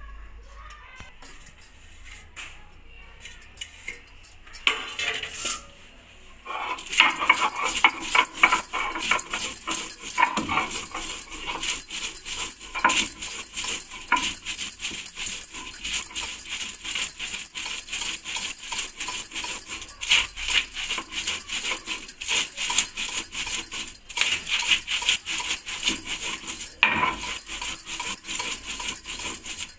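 Stone-on-stone grinding on a sil batta: the hand-held grinding stone is rubbed quickly back and forth over the flat stone slab, crushing green chillies and herbs into a paste. There are a few light knocks at first, then the fast, rough scraping strokes start about six seconds in and keep going steadily.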